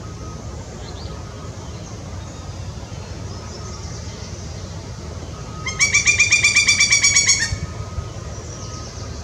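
Juvenile pileated woodpecker giving one rapid series of loud, evenly spaced call notes, about eight a second, lasting just under two seconds a little past the middle, over a faint steady low rumble.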